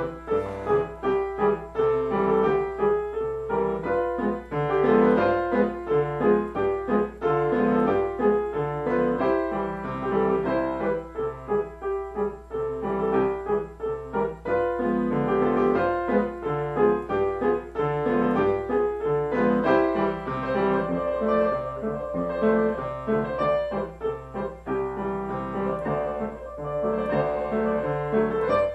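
Solo piano played continuously: a melody over lower accompanying notes, a short medley.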